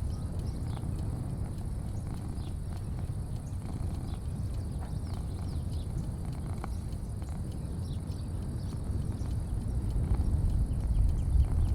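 Outdoor porch ambience: a steady low rumble that grows louder near the end, a steady faint high drone like insects, and scattered short, high falling chirps like small birds.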